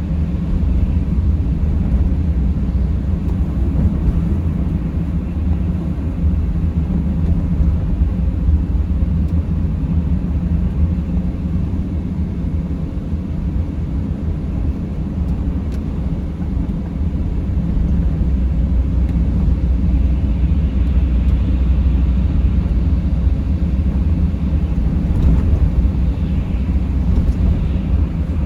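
Mercedes Sprinter van driving: a steady low rumble of engine and road noise that holds even throughout.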